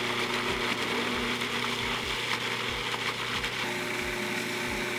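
Food processor running steadily at full speed, its motor humming and the blade whirring through watermelon chunks as it purees them into juice.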